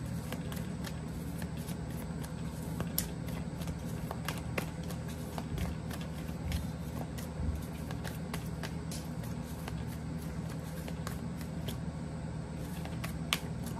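A deck of tarot cards being shuffled by hand: irregular soft clicks and slaps of card on card throughout, over a steady low background hum.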